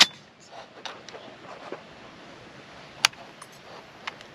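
Metallic clicks of an FN M249S rifle's action being handled during a clear check: a sharp click right at the start and another about three seconds in, with a few faint handling knocks between.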